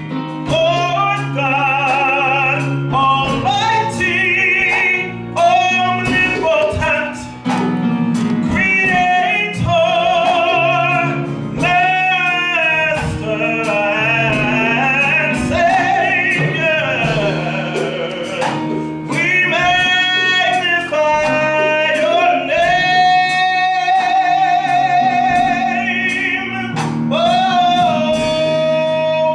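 Gospel worship music: a singer with a wavering vibrato carries a melody over sustained low instrument notes and percussion with a steady beat.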